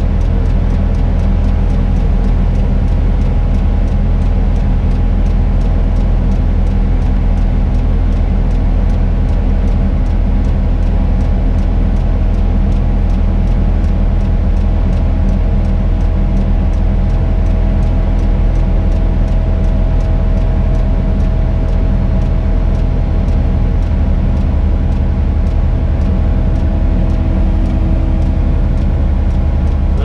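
Tadano 180G-5 crane's engine and hydraulics running steadily under load, heard from inside the operator's cab as the crane swings a suspended load. A higher steady whine comes in about halfway through.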